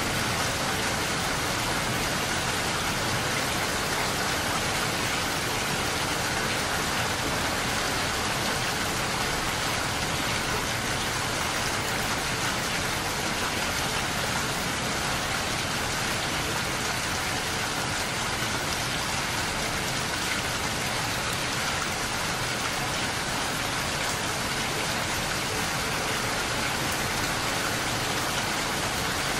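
Steady rain falling, a constant even hiss that neither builds nor eases.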